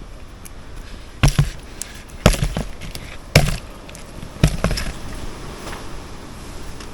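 Four sharp knocks about a second apart, some of them doubled.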